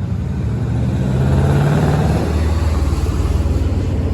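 A motor vehicle engine running close by, its pitch rising about a second in and then settling to a steady lower running note.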